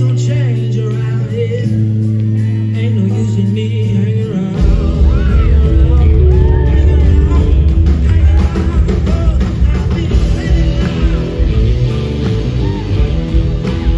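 Live blues-rock band playing loud: electric guitars over bass and drums. Held low notes sound for the first few seconds, then the full band comes in hard about four and a half seconds in.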